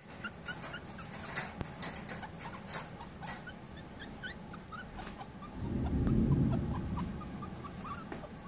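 Very young puppy squeaking: many short, quick, high chirps. Scattered clicks run throughout, and a low rumble swells from about five and a half seconds in to seven seconds.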